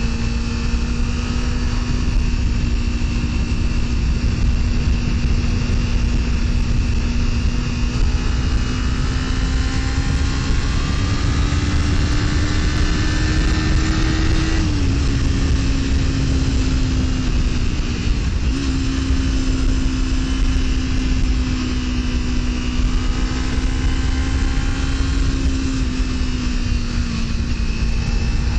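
Kawasaki Ninja 300's parallel-twin engine running at a steady cruise under heavy wind rush. Its note climbs slowly, drops about halfway, dips sharply and picks up again about two-thirds in, and eases once more near the end.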